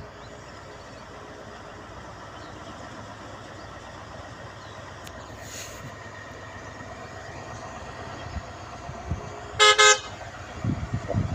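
Heavy truck engine running steadily as the truck climbs a dirt track, with two short, loud horn toots in quick succession near the end, followed by a few low thumps.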